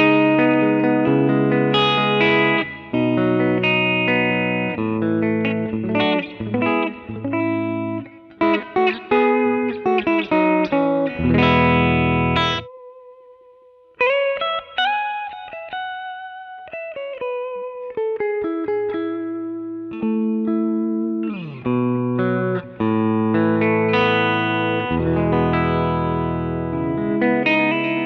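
Gibson Les Paul R9 electric guitar played through a Fractal Audio AX8 amp modeler: chords and riffs mixed with single-note lines. About halfway through, a heavy chord cuts off sharply for a brief pause with a faint held note, then a line of notes steps downward before the riffing picks up again.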